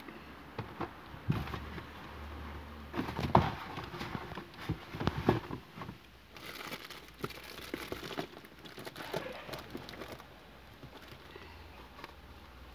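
Crinkling and rustling of things being handled, with scattered light knocks and clicks. It is loudest a few seconds in and dies down after about ten seconds.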